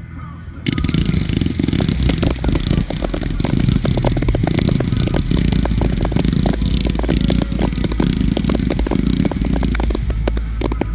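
A dense fireworks barrage: rapid bangs and crackling packed tightly over a heavy rumble, starting abruptly about a second in and running on without a break.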